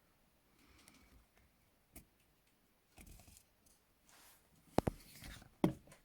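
Handling of steel handcuffs as a plastic banknote is worked into the cuff: faint rustles and scrapes with small ticks, then two sharper clicks near the end.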